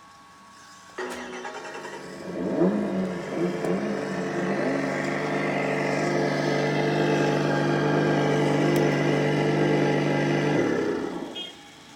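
Electronic engine sound module on a 1/10 RC car playing simulated car engine sound through its speaker: it starts suddenly about a second in, blips the revs a few times, then holds a steady rev before cutting off near the end.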